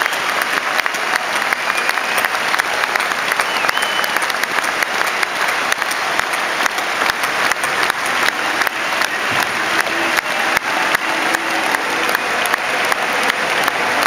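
Large stadium crowd applauding steadily: a dense, even wash of clapping.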